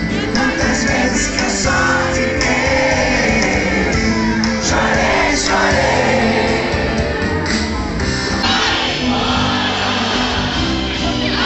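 Live concert music from an outdoor stage's PA, a band with a male lead singer, recorded loud on a phone from within the crowd, with crowd noise mixed in.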